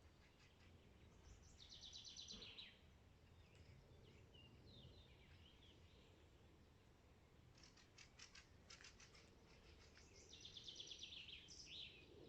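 Faint songbirds singing: a trilled song phrase about two seconds in and again near the end, with a few short chirps and a run of rapid ticks in between.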